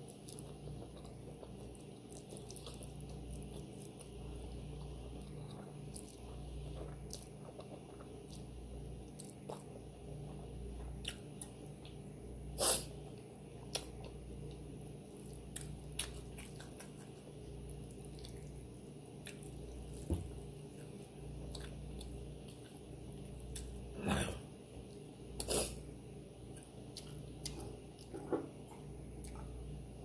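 Close-miked chewing of spicy cheese-covered noodles and chewy rice cakes: soft wet mouth clicks throughout, with a few sharper, louder clicks now and then, over a steady low hum.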